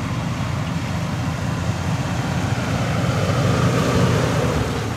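Dodge Ram pickup truck's engine revving as it drives through snow, building up to its loudest about four seconds in and easing off near the end.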